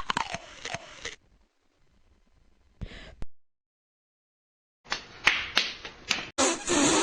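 A string of short meme sound-effect clips cut together with dead silence between them: quick slapping and smacking noises, a short burst about three seconds in, then a loud sustained noisy blast starting near the end.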